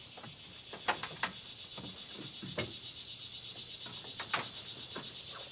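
A steady, high insect chorus with a fast shimmering pulse, which grows louder about a second in. Over it come several sharp knocks and clicks, the loudest near the start and one more about four seconds in, as someone shifts about inside a fabric hunting blind on a utility vehicle's bed.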